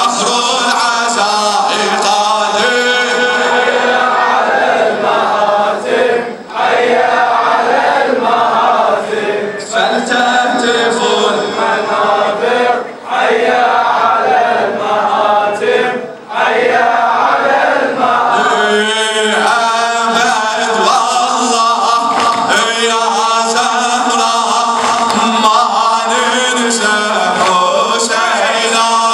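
A man chanting an Arabic Muharram lament into a microphone, in long melodic phrases broken by short pauses every three seconds or so, with the line growing steadier and more even from about eighteen seconds in.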